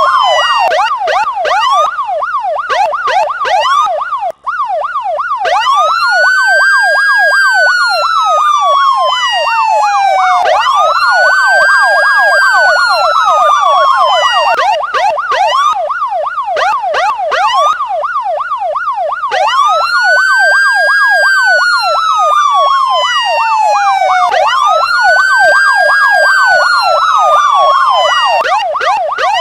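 Electronic police sirens sounding two patterns at once: a fast yelp sweeping up and down about three times a second runs throughout, while a slower wail rises over about a second and falls away over three to four seconds, again and again. The wail drops out for a few seconds around the middle while the yelp carries on.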